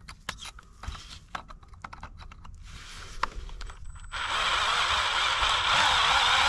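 Scattered clicks and taps, then about four seconds in a small electric drill starts up and runs steadily, drilling out a stud in an excavator's exhaust manifold flange, its pitch wavering under load.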